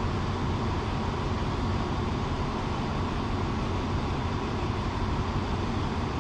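Diesel locomotive engines idling: a steady low rumble that does not change.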